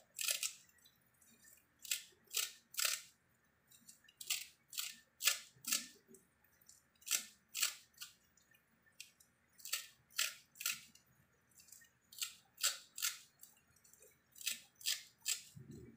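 Small kitchen scissors snipping a bunch of fresh coriander and parsley: a long run of crisp snips, one or two a second and often in quick pairs, with short pauses between.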